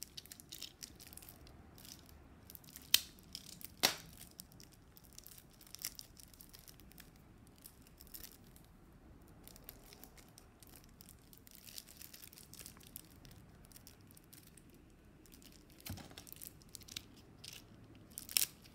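Plastic shrink wrap on a deck of game cards being picked at and torn open, with scattered soft crinkles and two sharper crackles about three and four seconds in.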